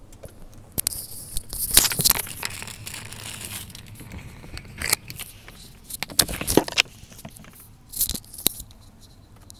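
Irregular rustling and crinkling handling noise, in uneven bursts loudest around two seconds in and again near the end.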